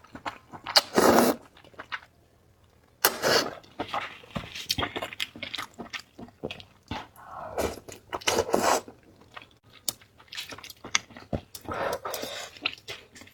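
A person eating spicy noodles close to the microphone: uneven bursts of slurping and chewing, with a short pause about two seconds in.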